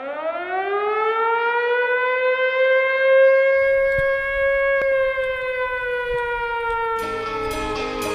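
A siren winding up: one tone rising in pitch over about three seconds, held, then slowly falling. Music with drums starts near the end.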